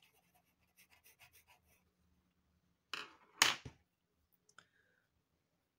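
Derwent pastel pencil scratching on Clairefontaine Pastelmat in a few quick shading strokes, then about three seconds in a couple of loud knocks and a short clatter as a pencil is put down among the others on the table, followed by a small click.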